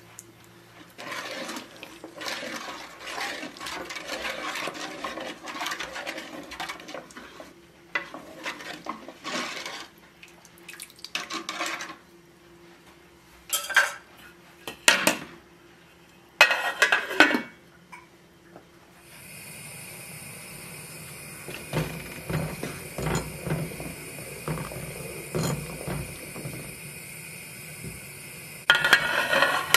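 Wooden spoon stirring milk and rice in an aluminium pot, scraping the bottom and sides and sloshing the liquid in irregular bouts, with a few short sharp knocks against the pot. For the last third a steady hiss with a thin high whine runs underneath, and a louder burst of stirring comes near the end.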